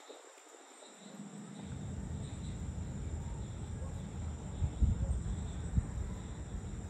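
Outdoor evening ambience: a faint, steady insect chirring high in pitch over a low rumble, with a few soft low thumps in the second half.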